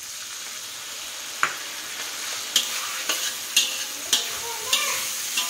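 Squid frying in an aluminium wok with tamarind juice just added, sizzling steadily, while a metal spatula scrapes and knocks against the wok, once about a second and a half in and then about twice a second.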